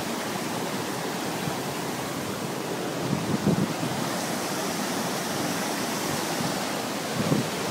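Floodwater from an overflowing river rushing over a road: a steady, even rush of fast-moving water.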